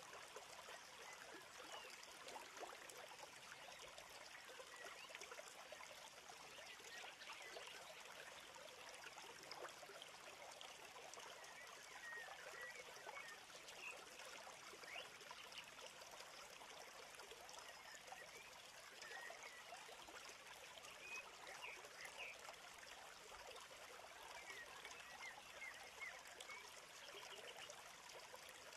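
Faint, steady sound of running water like a trickling stream, with many small high chirps scattered through it.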